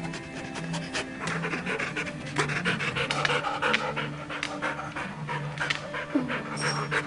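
A dog panting and huffing hard as it strains toward a treat, with short clicks and bumps, over quiet background music.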